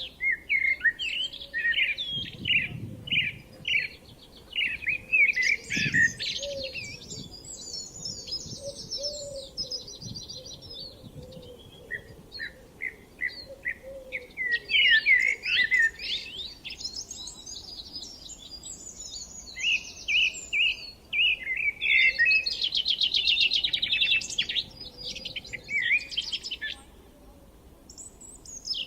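Songbirds singing in long, varied phrases of quick chirps and trills, one phrase after another with brief pauses, over a faint steady outdoor background.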